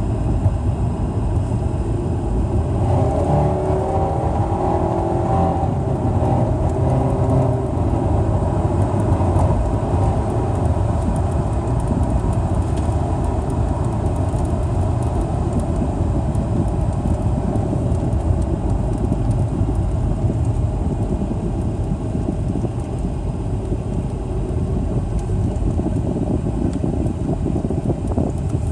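A 2008 Mazda3 running with a steady, loud low exhaust rumble. The owner is trying to find the cause of its loud exhaust and a whirring sound.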